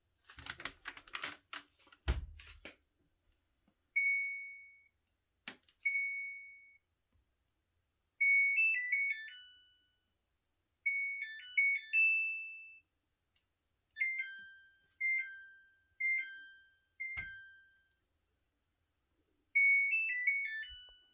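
Samsung FlexWash washer's electronic control panel beeping: single beeps, then short rising-and-falling chime tunes and a run of four two-note falling beeps about a second apart, as the washer flags its 1DC4 upper-washer door-lock error. It opens with a clatter and a thud as the washer's lid is shut, and there are a couple of sharp clicks between the beeps.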